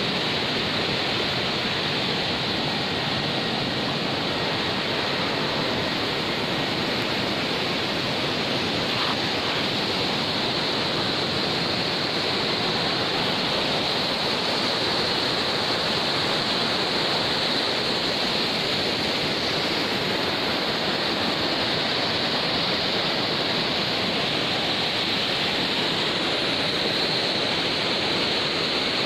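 Rocky river rapids rushing over boulders: a steady, unbroken noise of fast water.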